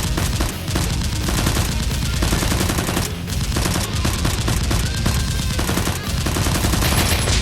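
Sustained rapid gunfire, shots following one another in quick, continuous succession like machine-gun fire.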